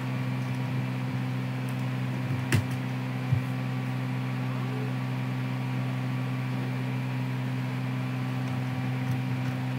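Steady electrical hum with a faint fan hiss from the computer, a noise the owner apologises for as annoying. A single sharp click about two and a half seconds in, and a soft low knock shortly after.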